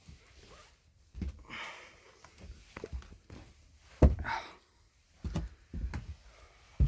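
Scattered thuds and bumps of someone moving around a room, with a sharp thud about four seconds in and another near the end. Two short hissing sounds come about one and a half and four seconds in.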